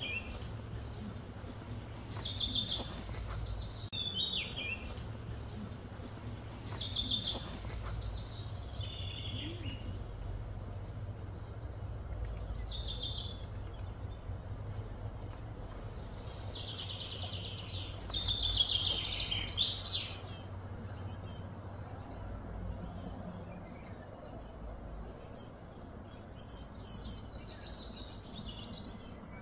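Birds calling outdoors in short chirping phrases repeated every second or two, over a steady low hum.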